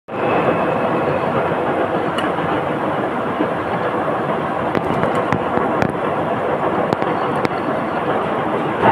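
Milling machine running, a steady loud machining noise that starts suddenly, with a few sharp metallic ticks scattered through it.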